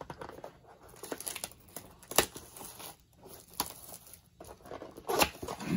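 Plastic wrapping on a trading card box crinkling and tearing as it is pulled off by hand, with a sharp snap about two seconds in and another near the end.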